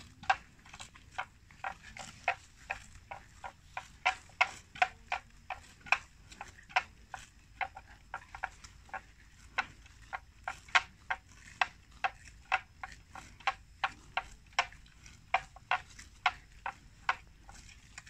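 Water buffalo feeding on water plants: a steady series of short, sharp chewing clicks, about two to three a second.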